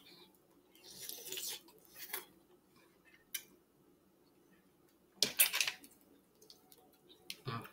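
Close-up eating sounds of a saucy seafood boil: wet sucking and smacking at the mouth, and a utensil clinking and scraping in a glass bowl of butter sauce. The loudest sound is a short burst about five seconds in.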